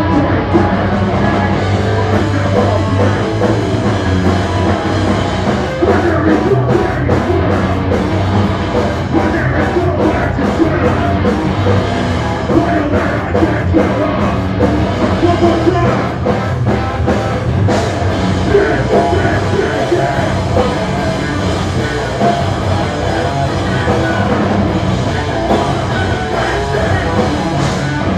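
Live punk band playing loud and without a break: electric guitar, bass and drum kit, with a singer's vocals over the top, heard from within the crowd.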